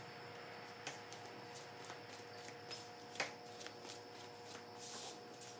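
A few light clicks and rustles of a truck's wiring harness being handled, over a faint steady background hum. The loudest click comes about three seconds in.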